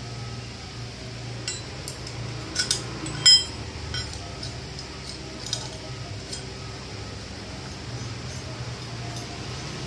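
Steel clamp pieces and spanners clinking against each other and the metal fitting on a flour-mill stone as they are handled. A handful of clinks, each with a short ring, the loudest about three seconds in, over a steady low hum.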